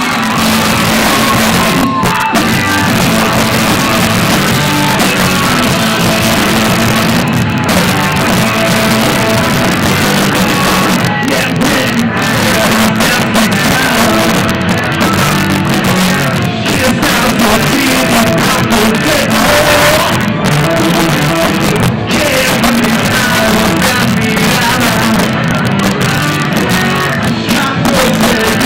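Rock song with singing, played loud and continuous.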